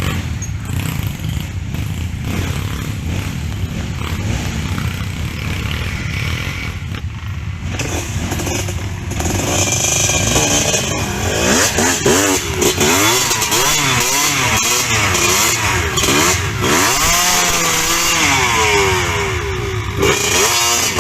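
Dirt bike engines labouring up a steep climb, with a low rumble at first; from about nine seconds in, loud, high revving whose pitch rises and falls over and over as the throttle is worked.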